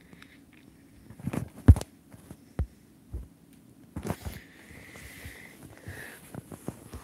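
Handling noise as the recording device is picked up and moved: a series of soft thumps and rubs, the loudest about a second and a half in, with a faint steady high hum in the second half.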